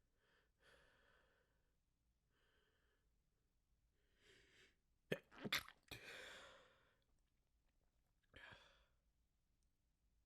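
A person's sneezing fit, brought on by chhinkni sneezing powder: a few shaky breaths build up, then a quick cluster of sharp sneezes comes about five seconds in, with a longer breathy exhale after it and one more short breath near the end.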